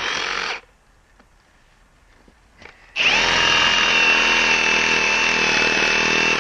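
Milwaukee M18 Fuel Sawzall cordless reciprocating saw cutting into a log of dense, wet green wood with a heavy-duty wood blade. A short burst of sawing stops about half a second in. After a pause the saw starts again about three seconds in and runs steadily under load with a high whine.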